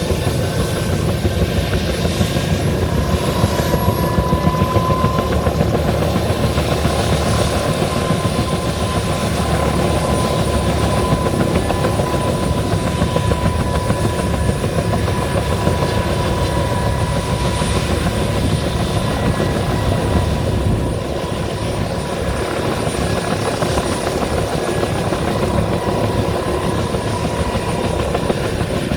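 Bell 205 helicopter running: the low, rapid beat of the rotor blades with a steady whine from its turbine engine. It becomes a little quieter about two-thirds of the way through.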